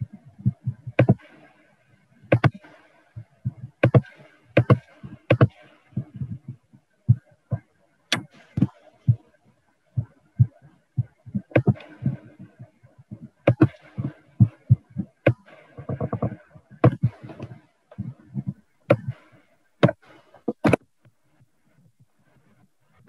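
Irregular tapping and clicking of a computer keyboard and mouse, several strokes a second with some heavier thumps, picked up by the computer's microphone. The clicking stops near the end.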